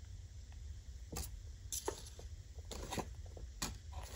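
Faint paper handling: several light, separate ticks and rustles as stiff journal pages and envelopes are touched and shifted, over a low steady hum.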